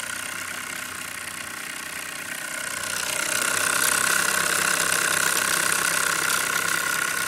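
Small Mamod steam engine running fast, a steady hiss with a high whine running through it, growing louder about three seconds in.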